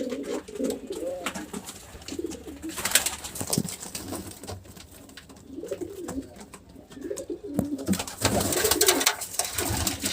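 Pigeons cooing repeatedly in low, warbling calls, with rustling and clicking, loudest about 3 seconds in and again near the end.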